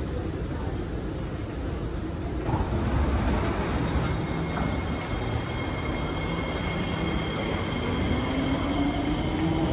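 Metro train noise in a station: a low rumble, then a steady high-pitched whine from about four seconds in, and a rising electric traction-motor whine near the end.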